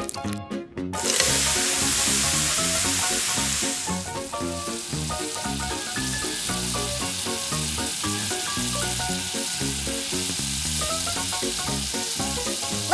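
Hot cooking oil sizzling as breaded chicken thighs deep-fry. It starts loud about a second in and settles to a steady, slightly lower sizzle after about four seconds.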